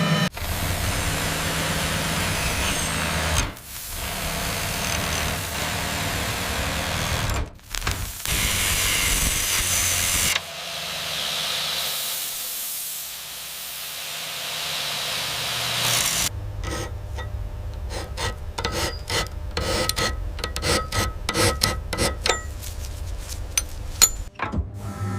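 Workshop power-tool noise in several short segments that change abruptly: a steady noisy running sound, then a softer high hiss from about ten to sixteen seconds in, then rapid irregular clicks and taps.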